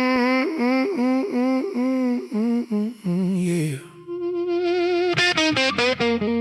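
Song intro: a voice hums a wavering melody in short phrases, which slides down and gives way to steady held tones. Several sharp clicks break in about five seconds in.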